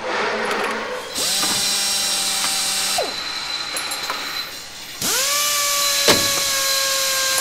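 Power drill motor spinning up and running at a steady pitch for about two seconds, then winding down. It spins up again about five seconds in and runs on, with a sharp click about a second after the second start.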